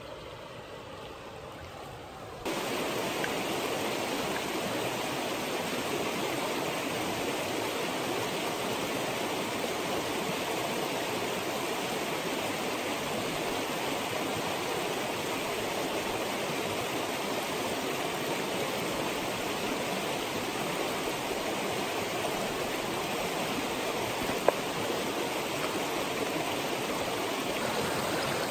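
Rushing water of a small rocky mountain stream tumbling through riffles: a steady hiss that is softer for the first two seconds or so, then jumps louder. A single sharp click near the end.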